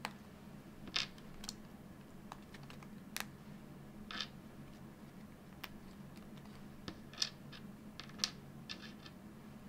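Small 3D-printed plastic parts clicking and snapping as they are broken off a printed kit card and set down on a cutting mat: about a dozen short, sharp clicks at irregular intervals.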